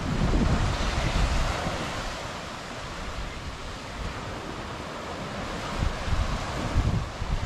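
Small waves breaking and washing up a sandy beach, with wind buffeting the microphone in low gusts at the start and again near the end.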